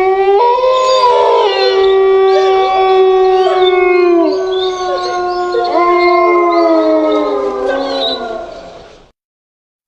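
Wolves howling in chorus: several long, overlapping howls at different pitches, sliding up and down. The chorus fades out about nine seconds in.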